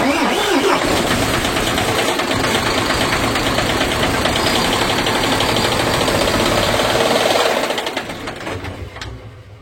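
MAN TGA's 10.5-litre diesel engine running at raised revs with a steady knock, then shut off about eight seconds in and running down. The mechanics trace the knock to the engine itself rather than an injector, because it keeps on until the last turn of the crank after shutdown.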